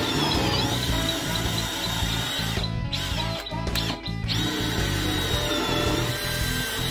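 Makita cordless drill boring a deep hole into a solid wood workbench top, its motor whining steadily under load. The drill stops briefly twice, about three and four seconds in, as the bit is pulled up to clear the wood chips.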